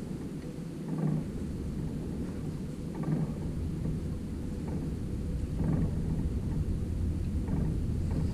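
Steady low rumble of wind and fast-moving river water around a boat, with water slapping the hull in surges about every two seconds.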